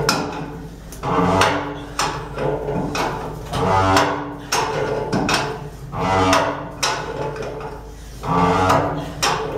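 Threaded steel boiler stay tube being wound by hand into a thick steel tubeplate, the threads creaking with each pull of the wrench in repeated strokes about once a second, mixed with metallic knocks.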